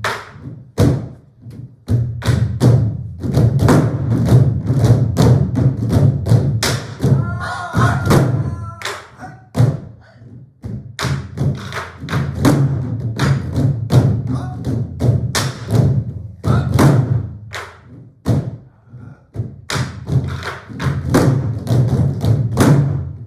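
An ensemble of Korean buk barrel drums played together, with rapid rhythmic strikes on the drumheads and wooden shells. The playing thins out briefly around the middle and again near the end before picking back up.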